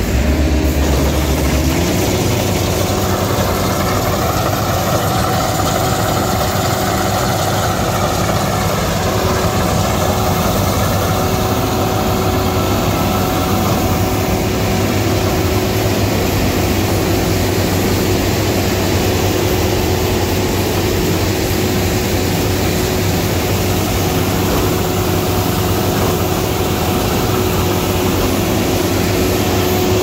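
Vardhman VCH-2200 tracked combine harvester running while cutting a paddy crop: a steady engine hum with the clatter of the machinery. Its pitch steps up about two seconds in, then holds steady.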